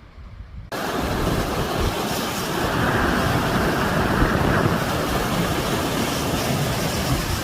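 Rapids on a river swollen by recent rain, rushing loudly and steadily; the roar starts abruptly under a second in.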